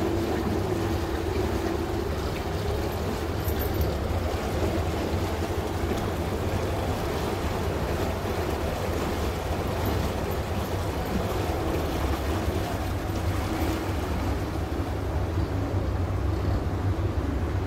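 Small river car ferry under way: a steady engine drone with water washing around the hull and wind buffeting the microphone. A hum in the drone is strongest in the first few seconds, then eases.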